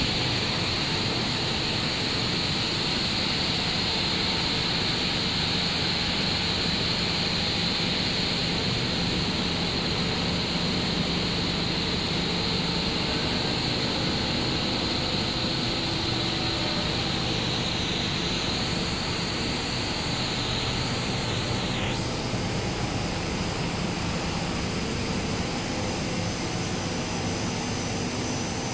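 Steady industrial din of a running four-screw cast stretch film extrusion line. A high-pitched hiss sits over the machine noise, then dips and cuts off about three quarters of the way through.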